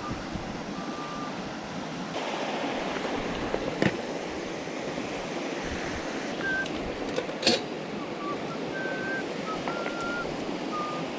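Steady rushing of a mountain stream flowing, with a few short high whistles and two sharp clicks, one about four seconds in and one near the middle.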